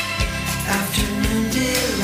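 Background music with a steady beat and no vocals.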